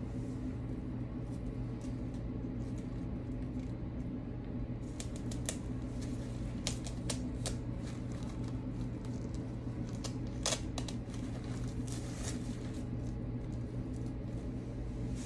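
Artificial flowers rustling and crackling in scattered light clicks as the rose ball is handled and its petals adjusted, mostly from about five to thirteen seconds in, over a steady low hum.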